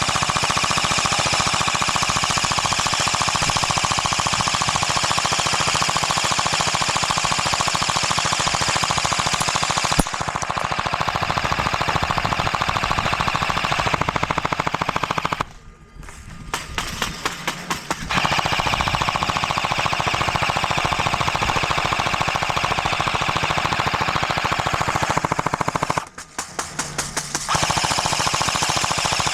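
Airsoft rifles firing on full auto in long, unbroken streams of rapid shots as covering fire. The firing breaks off twice, about halfway through and again near the end, stuttering into separate shots before it picks back up.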